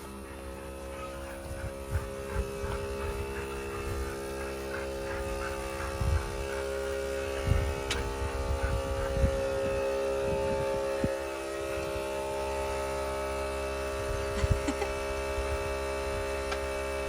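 A steady hum made of several held tones, with soft low thumps scattered through it.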